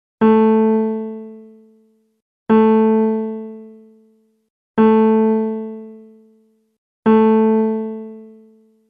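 Music: a single keyboard note, piano-like, struck four times at an even pace about every two and a quarter seconds, each ringing out and fading away before the next.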